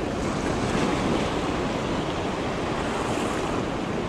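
Ocean surf breaking and washing in over the shallows, a steady rushing wash that swells slightly about a second in, with wind blowing on the microphone.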